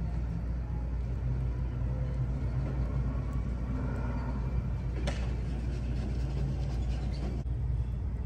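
Hawk moth whirring its wings while clinging to a wall, warming up its flight muscles before take-off, heard close to the microphone as a steady low hum.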